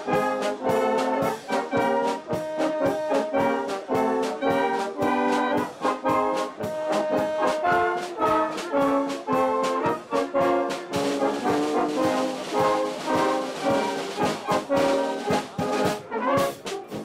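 Brass band of flugelhorns and trumpets playing a lively tune in quick, rhythmic notes. A bright hiss joins the music from about eleven seconds in until near the end.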